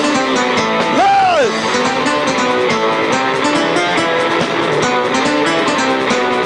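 Punk rock band playing live: electric guitar strumming over bass and a steady drum beat. About a second in, a brief loud sound slides up and back down in pitch across the music.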